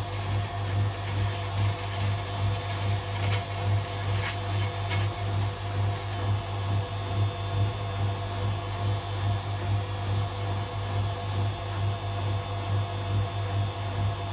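Hotpoint WMA37 Aquarius washing machine running its drum, a steady low hum that swells about twice a second as the drum turns, with a few faint ticks about three to five seconds in.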